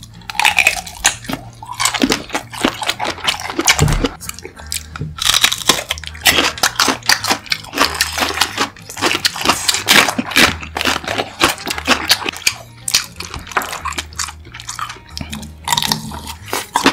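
Close-miked eating: bites into large sausages and chewing, a dense run of crunchy, wet mouth clicks with a few short pauses.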